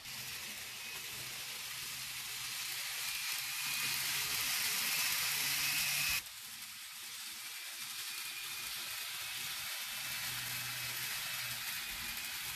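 N-gauge model of a Tsurumai Line 3000 series subway train running on the layout track: a steady hiss of wheels on rail over a low motor hum, growing louder for the first six seconds, then dropping abruptly.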